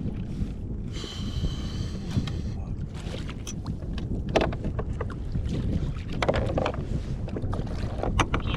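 Wind rumbling on the microphone out on the water, with a few light knocks and clicks and a brief high whine about a second in.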